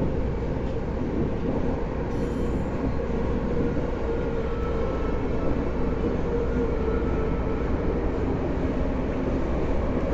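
Tokyo Metro Tozai Line train with a permanent-magnet synchronous motor (PMSM) drive running between stations, heard inside the car: a steady rumble of wheels and running gear. A faint high motor whine comes in around the middle.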